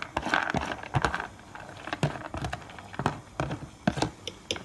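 Soaked chana dal (split chickpeas) being scraped out of a plastic tub into a glass blender jar, the grains falling in with a run of irregular small clicks.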